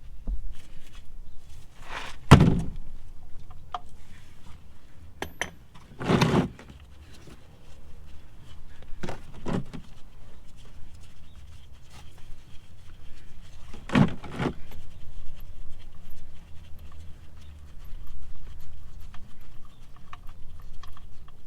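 Metal tool knocks and clanks while a 19 mm socket loosens a car's oil pan drain plug. There are four separate knocks several seconds apart, the loudest about two seconds in, with quiet handling noise between them.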